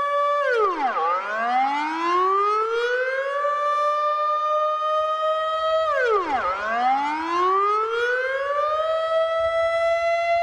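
Civil defence warning siren with a buzzy, kazoo-like tone. About every five and a half seconds its pitch drops sharply, climbs back slowly and holds steady.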